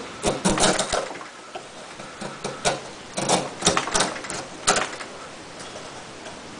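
Spyderco Tenacious folding knife's 8Cr13MoV blade shaving curls off a clamped wooden block, a short rasp with each push stroke. The strokes come in quick runs through the first five seconds, then ease off.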